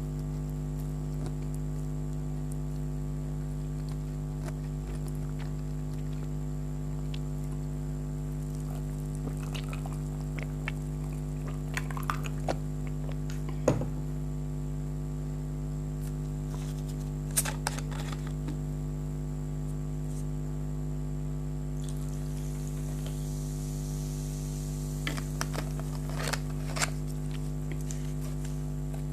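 Steady electrical mains hum under a few scattered small clicks and smacks of someone eating noodles, with a soft hiss for several seconds past the middle.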